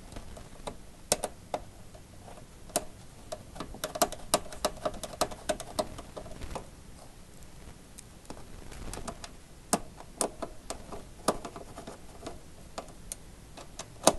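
Hand screwdriver tightening the small bolts that tie a Fronius IG inverter to its wall mounting plate: irregular sharp metal clicks and ticks in bursts as the tool and bolts turn against the plate.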